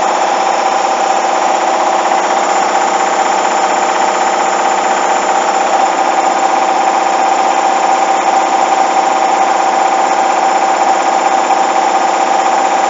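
Hoover washing machine in its high-speed final spin: a loud, steady whine with a rattling vibration, the sign of an unbalanced load thumping the drum.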